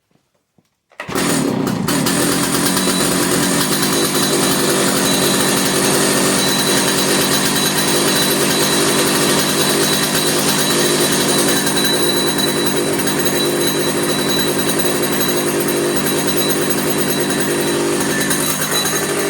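Stihl 056 AV two-stroke chainsaw engine running, starting abruptly about a second in and holding a steady speed. The freshly restored saw runs evenly without cutting out.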